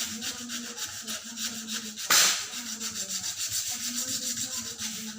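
Wood being sanded by hand with sandpaper: quick, even back-and-forth scraping strokes, about five a second, with one louder scrape about two seconds in.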